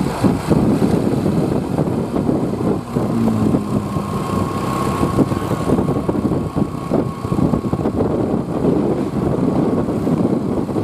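Bus engine running with a dense, continuous mechanical rumble at an even loudness; no horn tune is sounding.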